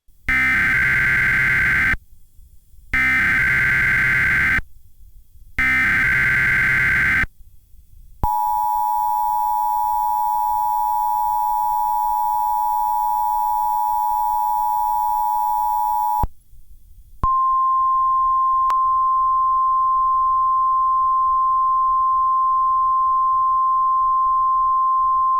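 Emergency Alert System tones. First come three short bursts of warbling SAME header data, each under two seconds with a second's gap between them. Then the two-tone EAS attention signal sounds steadily for about eight seconds, and after a brief pause a single steady NOAA Weather Radio alert tone follows.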